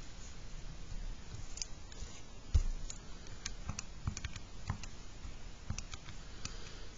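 Keys of a Texas Instruments TI-83 Plus graphing calculator pressed one at a time, a string of light clicks, with one heavier knock about two and a half seconds in.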